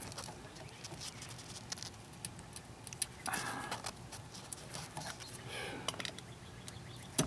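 Scattered light clicks and short scrapes of a flathead screwdriver prying a fuel-line retainer clip out of a fuel filter fitting.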